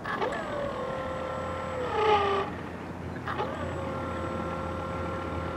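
Whine of a model boat's single electric motor running at low speed. The steady whine swells and drops in pitch about two seconds in, cuts out, then starts again about a second later and holds steady.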